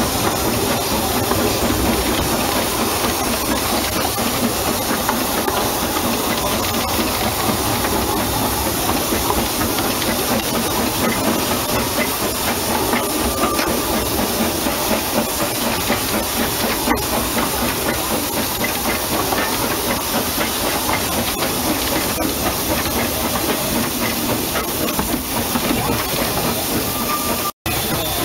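Steady steam hiss and running noise from a narrow-gauge steam locomotive under way, heard close on its footplate. The sound cuts out for an instant near the end.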